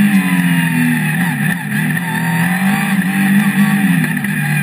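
Touring race car engine running hard, its pitch rising and falling with the revs.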